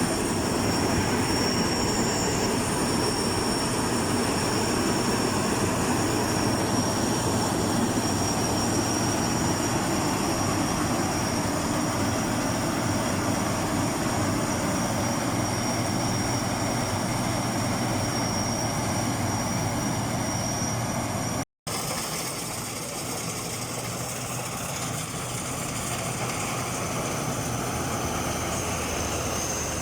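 Agrotech Eco combine harvester running steadily, a continuous machine noise with high, steady whines over it. The sound drops out for a moment about two-thirds of the way through and then carries on.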